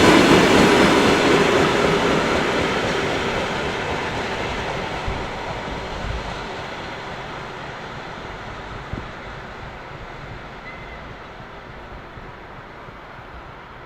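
Freight train of rail wagons rolling past and moving away: the rumble and clatter of wheels on rail fade steadily, high end first, with a faint knock or two in the middle.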